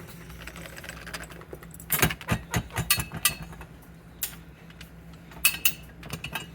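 Keys jangling and clicking against a fire alarm pull station as it is unlocked and reset, with bunches of sharp metallic clicks about two seconds in and again near the end.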